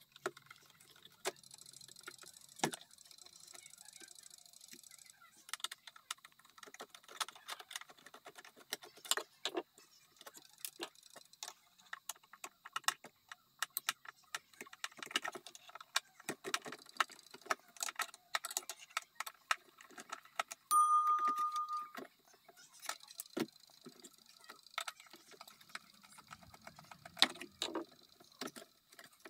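Light metal clicks, taps and clinks of a screwdriver and hands working the brass movement of a Seth Thomas Sonora mantel clock loose from its case. About two-thirds of the way through, one of the clock's chime bells rings once, a single clear note that fades over about a second and is the loudest sound.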